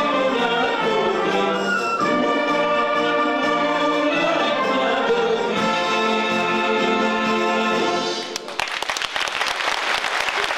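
Wind band with brass playing a sustained passage that ends about eight seconds in, followed by audience applause.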